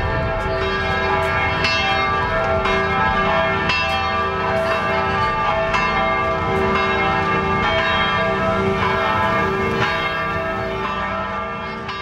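Church bells ringing, with many overlapping strokes and their tones hanging on, fading out near the end.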